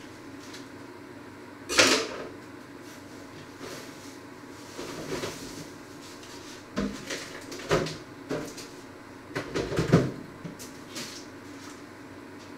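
Knocks and clatters of someone working in a kitchen, handling cupboards and kitchenware. The loudest comes about two seconds in, and a cluster of them falls near the end.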